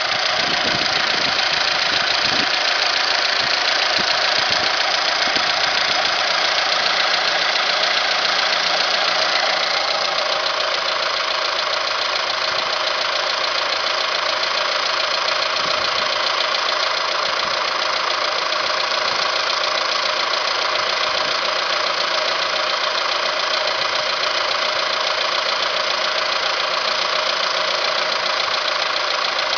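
Alfa Romeo 156 engine running steadily, likely at idle, with a busy mechanical clatter. The clatter is suspected to be the variable valve timing variator (cam phaser) knocking. The sound drops slightly in level about ten seconds in.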